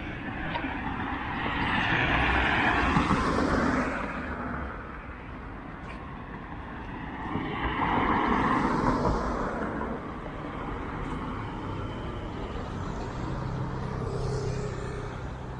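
Road traffic: two vehicles pass one after the other, each a swelling rush of tyre and engine noise that rises and fades, the first about two seconds in and the second about eight seconds in, with a low engine hum near the end.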